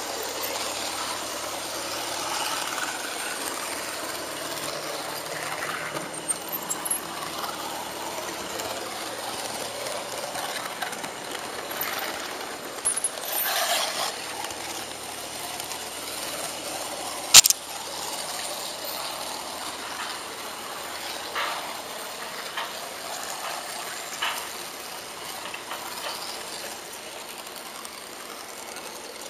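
An HO-scale model train running along its track, heard from on board: a steady rattle of small wheels and motor over the rails. A few louder clicks, with one sharp crack a little past the middle.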